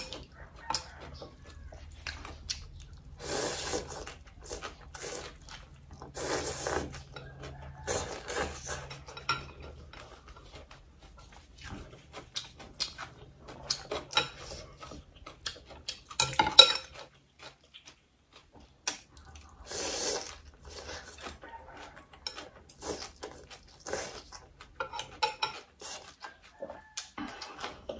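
Close-up eating sounds: a metal spoon and chopsticks clinking and scraping against a glass bowl of noodle soup, with several short noisy bursts from slurping and chewing noodles and raw vegetables.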